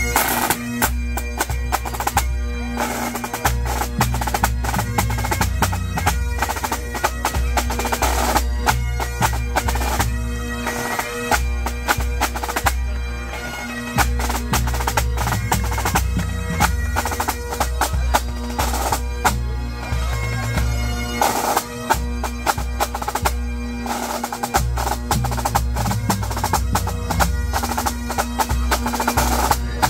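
Pipe band playing: Great Highland bagpipes over a steady drone, with a drum corps of snare drums playing rapid rolls and strokes, tenor drums and a bass drum keeping the beat.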